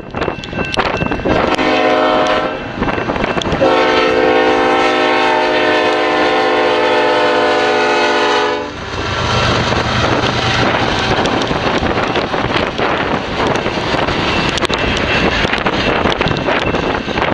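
Diesel locomotive air horn sounding a short blast and then a long one of about five seconds, a chord of several tones. After the horn stops, the freight train rumbles and clatters past.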